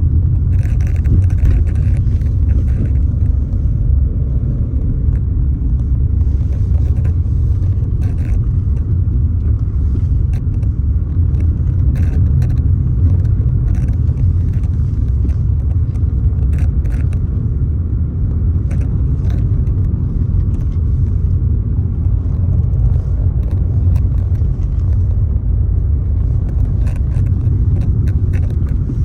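Wind rumbling steadily on the microphone outdoors, with scattered brief high ticks and a short run of high chirps about a second in.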